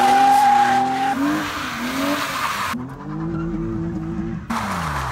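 BMW E36 M3 straight-six revving hard through a burnout and drift, with the tyres squealing and skidding on pavement. The tyre squeal drops out about three seconds in, leaving the engine note alone. Near the end the engine pitch falls and then climbs again.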